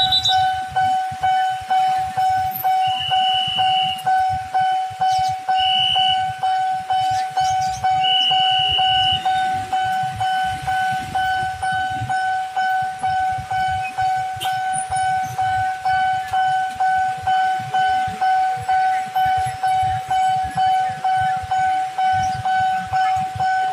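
Railway level-crossing warning bell ringing, a steady electronic tone repeating about twice a second, signalling that a train is approaching and the barriers are down. A few short higher-pitched beeps sound over it in the first ten seconds.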